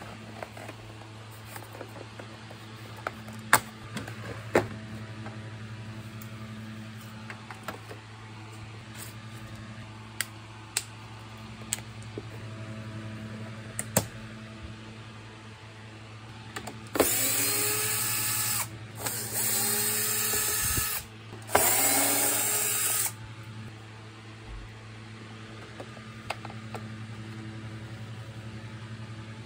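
Cordless drill-driver run in three short bursts of about two seconds each, driving screws in the plastic housing of a vacuum cleaner being taken apart. Sharp clicks and knocks of plastic parts being handled come before and after.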